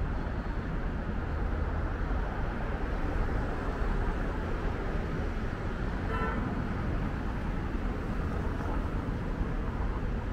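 Steady road traffic running past on a busy city street, with a single short vehicle horn toot about six seconds in.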